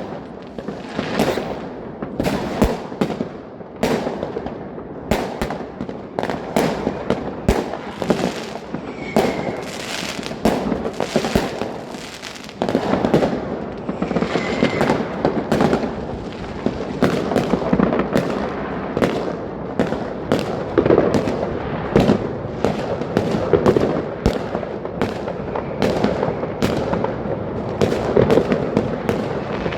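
New Year's Eve fireworks and firecrackers going off without pause, a dense jumble of overlapping bangs and crackling. It grows louder and thicker about twelve seconds in.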